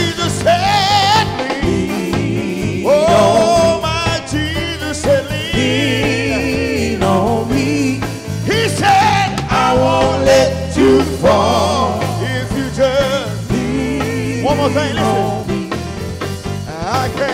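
Gospel vocal group singing with heavy vibrato over a live band of keyboard, guitars and drums, the lead singer drawing out sustained, sliding notes.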